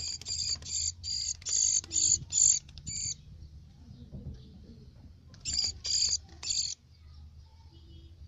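A small brown songbird held in the hand, giving short, high calls in quick runs: about seven in the first three seconds, then three more just past the middle.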